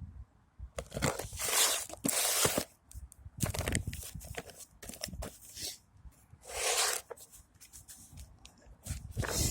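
Irregular rustling and crunching noises, a few longer bursts with short clicks between them, like something being handled.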